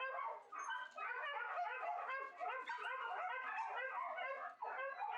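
A kennel full of shelter dogs barking, yipping and howling all at once in a dense, unbroken din of overlapping voices.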